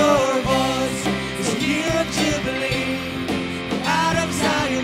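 A live worship band plays a praise song: sung vocals over electric guitar and a full band.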